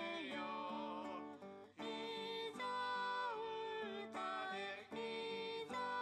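A song with singing over acoustic guitar, the melody running on with short breaks between phrases.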